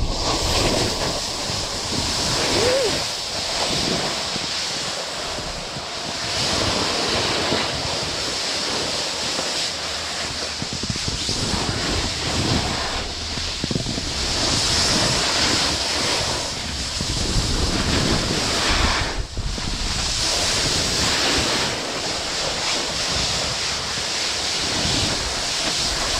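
Wind rushing over the camera microphone while a snowboard's edges scrape and carve through snow on a fast run down the mountain. It is a continuous hiss that swells and eases with the turns and drops away briefly once, about two thirds of the way through.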